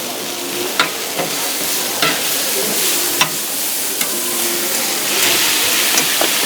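Beef steak sizzling and frying on a hot griddle, with a few sharp clicks as it is worked. The sizzle grows louder about five seconds in.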